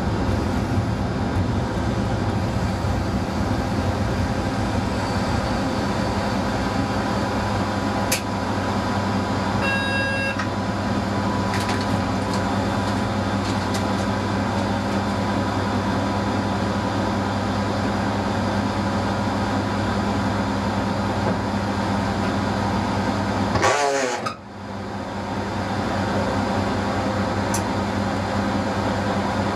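ČD class 854 railcar's diesel engine idling with the railcar standing, a steady low hum. About ten seconds in a short electronic beep sounds, and near the end the hum briefly dips out with a quick falling sweep before returning.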